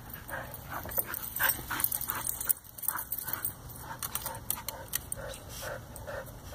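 A dog whining and yipping in short sounds repeating about three times a second.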